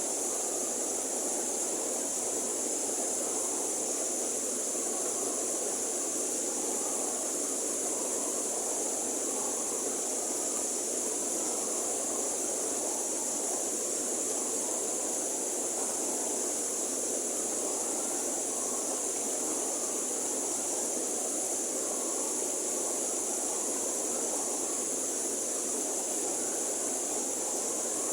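River water flowing steadily, an even rushing with a constant high hiss above it.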